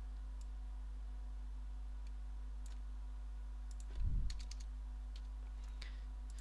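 A few faint computer keyboard keystrokes and mouse clicks, over a steady low electrical hum, with one brief low thud about four seconds in.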